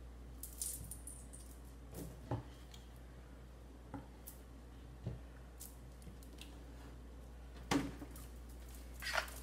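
Scattered small clicks and knocks of kitchen objects being handled on a counter, the sharpest knock near the end, over a steady low hum.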